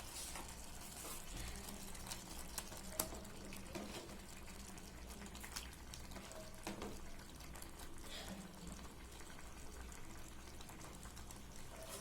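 Chicken masala gravy bubbling gently in a pan, with occasional light clicks and knocks of a spoon or the pieces against the pan.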